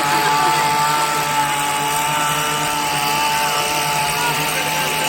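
Yamaha R15 motorcycle's single-cylinder engine running at a steady speed while riding, its drone holding one even pitch over a rush of wind noise.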